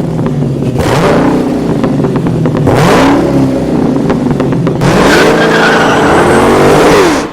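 A car engine revving hard three times, its pitch climbing and falling each time, over a loud rushing noise. It starts and cuts off abruptly.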